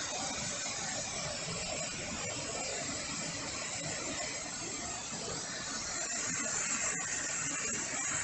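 Steady rush of a small waterfall pouring into a rock pool.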